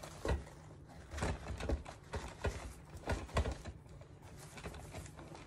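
Handling noise of a resin bird figurine being rubbed with a paper towel and knocked against a wooden board: a run of irregular small knocks and scrapes, with soft paper rustling.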